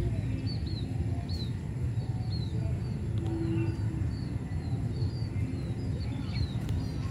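Steady low rumble of road traffic going by, with small birds chirping repeatedly over it in short high notes, roughly one or two a second.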